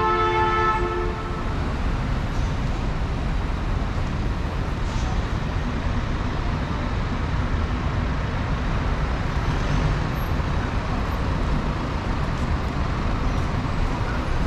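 City street traffic: a steady wash of passing vehicles with a low engine rumble. A long, steady horn-like tone that was already sounding cuts off about a second in.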